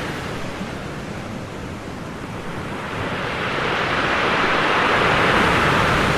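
Ocean surf breaking and washing in: a steady rush of water that eases a little in the first couple of seconds, then swells again to a peak about five seconds in as a wave breaks.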